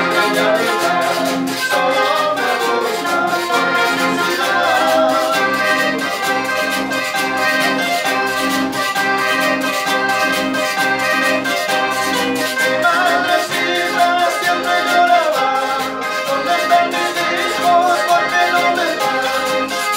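Small Andean folk ensemble playing live: a piano accordion carries the melody over two strummed acoustic guitars, while a hand-held metal percussion instrument keeps a steady rhythm.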